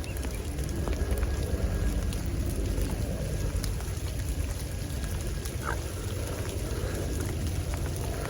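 Steady rain falling: an even, constant hiss with a low rumble underneath and faint scattered ticks.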